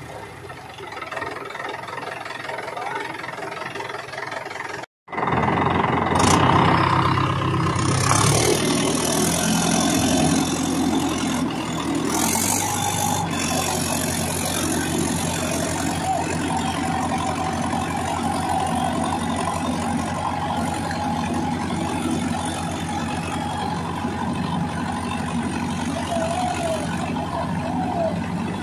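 Diesel tractor engine running steadily with an even firing beat, loud after a brief dropout about five seconds in and quieter before it.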